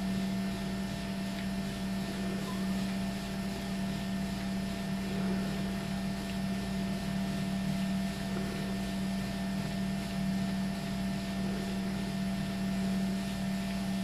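Motorized treadmill running at a steady speed: an even low motor hum with a constant hiss of the moving belt.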